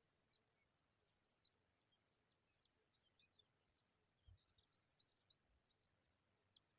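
Faint high bird chirps, short rising notes scattered through and bunched about four to five seconds in, over a very high buzzy trill that repeats about every second and a half.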